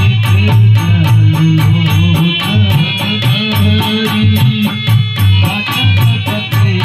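Dholak played in a fast, even rhythm of crisp strokes with a jingling rattle, over sustained low accompanying notes.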